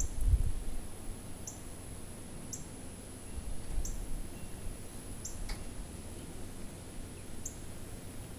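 A bird's short, high, downward-sliding chirps, repeating about once every second or so, over low wind rumble on the microphone that is loudest at the start.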